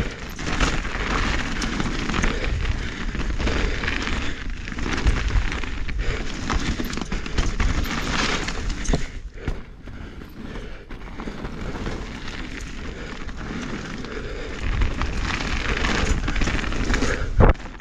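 Norco Fluid mountain bike riding fast down a dirt singletrack: tyres rolling and chattering over dirt and roots, with heavy wind rumble on the camera microphone. One loud thump comes near the end.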